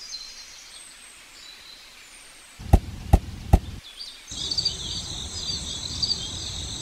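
Three sharp clicks about half a second apart, followed a second later by steady high-pitched cricket-like insect chirping that continues.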